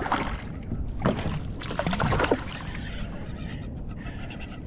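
Hooked bonito thrashing and splashing at the water's surface beside a kayak, in several bursts over the first two seconds or so, then quieter steady water noise.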